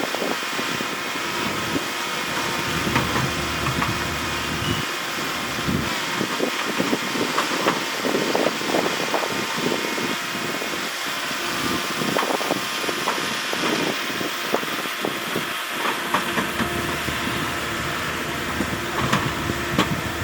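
Heavy diesel earthmoving machinery running steadily, with many irregular short clanks and crunches over the engine sound.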